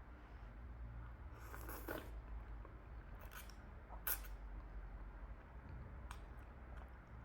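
Close-up eating sounds: chewing momo, with a soft wet smear of sound early and a few sharp clicks, the loudest about four seconds in.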